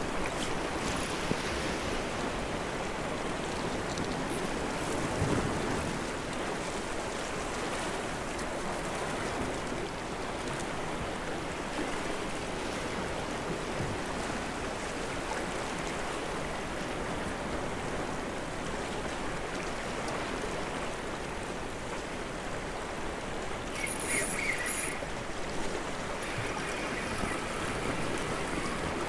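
Sea waves washing over a rocky shoreline, a steady rushing hiss of surf with no let-up. A brief high scratchy sound rises over it near the end.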